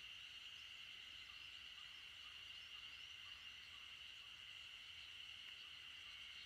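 Faint, steady, high-pitched chorus of calling animals that hums on without a break, barely above near silence.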